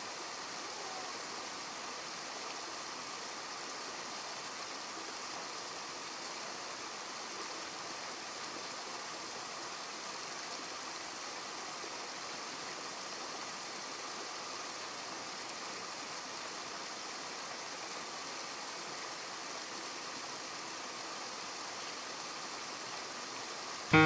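Steady rushing of a small river spilling over a low weir.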